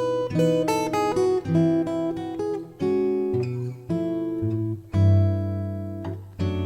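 Background music: an acoustic guitar plays a melody of plucked notes over chords, with a loud strummed chord about five seconds in.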